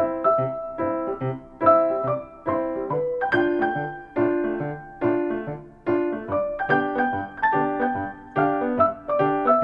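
Background piano music: a light, bouncy tune of plucky keyboard notes played at a steady beat.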